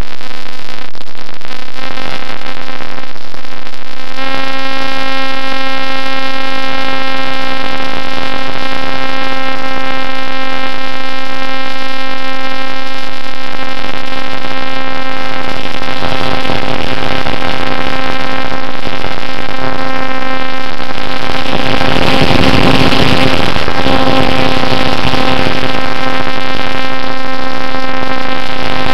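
Brushless electric motor and propeller of a Bixler model plane, heard through its onboard camera, running with a loud steady whine that steps up about four seconds in. A rush of wind noise swells over it around twenty-two to twenty-five seconds in.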